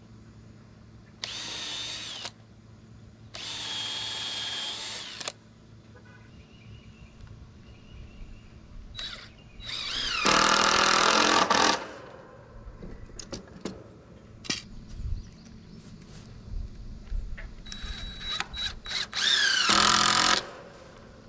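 Cordless drill driving screws into the wooden frame in four runs: two shorter ones near the start, then two longer, louder ones about halfway and near the end, its pitch sagging under load and rising again. Light clicks and knocks between the runs.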